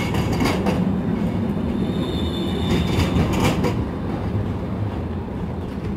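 Low-floor electric tram moving past close by: a steady motor and running hum, with a few sharp clacks from the wheels on the track about half a second in and again around the third second.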